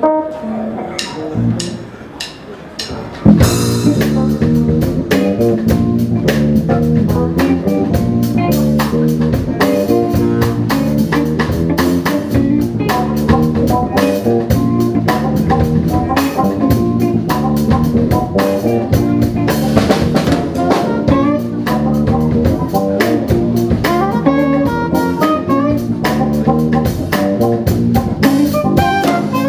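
Live jazz-funk band playing: drum kit, electric bass, electric guitar, keyboards and saxophone. A few sparse hits open it, then the full band comes in loudly about three seconds in with a steady groove.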